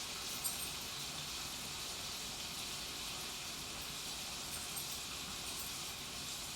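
Espresso machine warming up after being switched on: a steady hiss, with one small click about half a second in.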